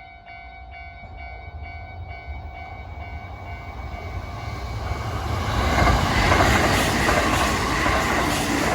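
A train approaching and passing, its wheels clattering over rail joints, growing louder through the first half and loudest from about six seconds in. A steady ringing tone sounds at the start and fades out after a couple of seconds.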